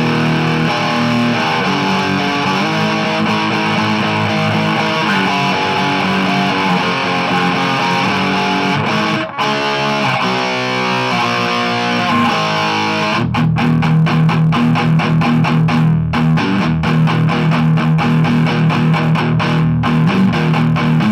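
Electric guitar, a 2012 Epiphone Les Paul Standard played through a Marshall Origin 20 valve head and a 2x12 cabinet: held chords and a short single-note run, then, about two-thirds of the way in, a louder rhythmic strummed part.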